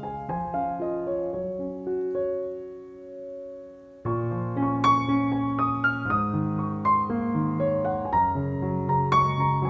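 Background piano music, a gentle melody with a quieter held passage that thins out, then fuller playing resuming about four seconds in.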